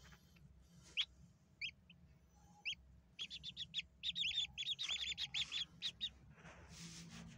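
Newly hatched Brahma chicks peeping: a few single high peeps, then a quick run of chirps from about three to six seconds in, with a short rustle near the end.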